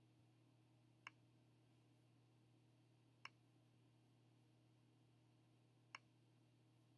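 Near silence with three single sharp computer clicks, about a second, three seconds and six seconds in.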